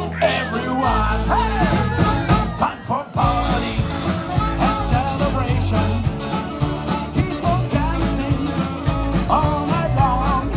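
Live rock band with saxophone, electric guitars, drums and a singer playing a Christmas song.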